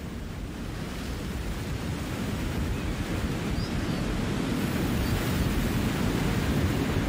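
Sea surf washing against a rocky shore: a steady rush of waves that fades in and grows gradually louder.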